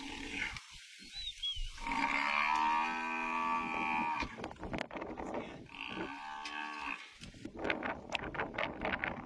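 Cape buffalo bellowing in distress while lions hold it down by the muzzle: one long call of about two and a half seconds, then a shorter one about a second later. Near the end, a run of sharp clicks and crackles.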